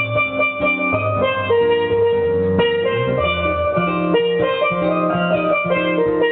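Steel pans played live: ringing melody notes, each held about half a second to a second, over a low bass line.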